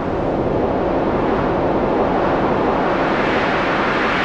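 Thunderstorm sound: a steady rush of heavy rain with a low rumble underneath.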